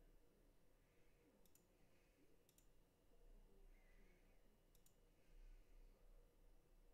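Near silence broken by faint computer mouse clicks: three quick double ticks, the first about a second and a half in and the last near five seconds.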